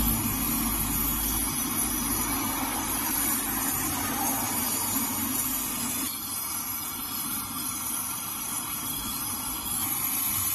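Brazing torch flame hissing steadily while a refrigerator's copper pipe joints are brazed. The sound starts abruptly.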